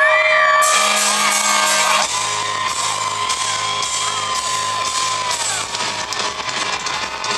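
Live pop-punk band heard from within the crowd: its low sustained chord stops about two seconds in, leaving a cymbal wash, one long held note and the crowd yelling and whooping.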